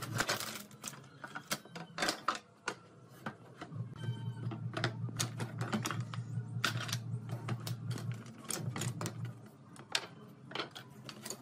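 Thin wooden strips clattering and knocking against each other and the wooden tabletop as they are handled and sorted, a run of irregular sharp clicks. A steady low hum sits underneath for several seconds in the middle.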